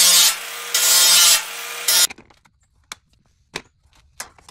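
Cordless cutoff tool's spinning wheel cutting through a slotted steel bar, throwing sparks, the grinding swelling and easing in two loud passes over a steady motor whine until the cut finishes and it stops about two seconds in. A few light metal clicks follow as the bar is handled.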